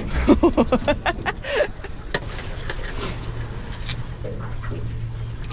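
Sounds aboard a small boat on the water: scattered knocks and clicks, and a low steady hum that sets in about three seconds in. A voice is heard briefly at the start.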